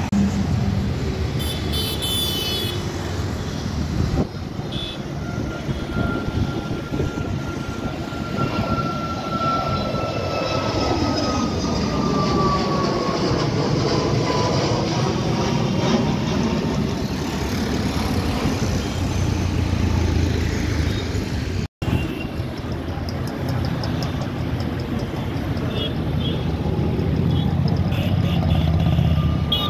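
Jet airliner engines on takeoff and climb-out, a steady rumbling roar. Through the middle a Boeing 737 MAX 8 climbs overhead, its engine whine falling slowly in pitch as it passes; after a brief break, another twin-jet is heard climbing away.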